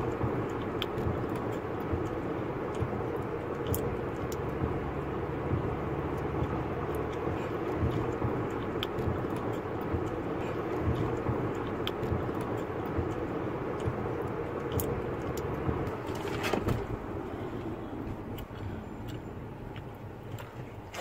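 Steady road and engine noise inside a moving car's cabin, a continuous drone of tyres and motor that grows somewhat quieter after about sixteen seconds.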